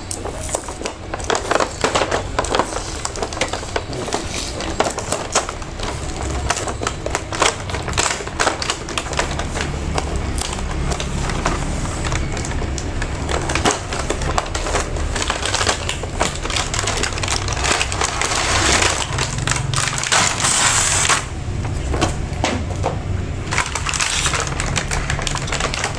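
Plastic and cardboard packaging of a toy train set being handled and opened: crinkling and rustling with many quick irregular clicks and taps, and a brief burst of harsher crackling near the end.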